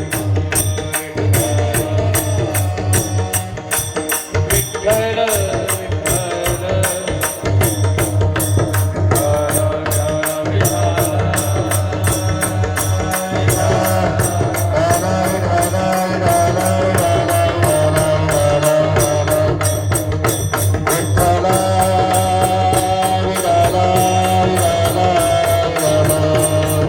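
Devotional kirtan music: a fast, steady beat of drum and hand-cymbal strokes under sustained melodic lines, possibly with wordless singing.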